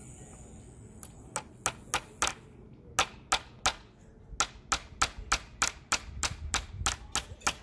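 Hammer driving nails into a wooden raised-bed board: sharp strikes at about three a second, starting about a second in, with a short pause before the hammering resumes steadily.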